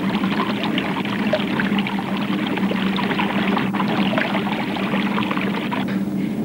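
Liquid bubbling and fizzing in laboratory glassware: a dense crackle of tiny pops that stops about six seconds in, over a steady low hum.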